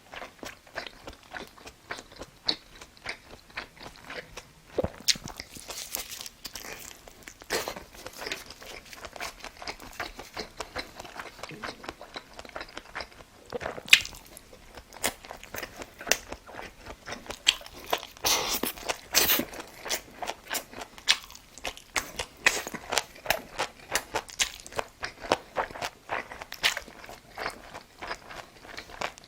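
A person chewing and biting food close to the microphone: a dense, irregular run of short clicks and smacks of mouth noise.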